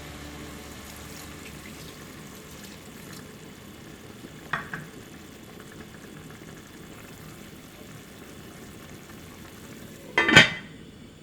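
Food sizzling in a hot pan, with a short utensil tap about four and a half seconds in and a louder clatter of cookware near the end.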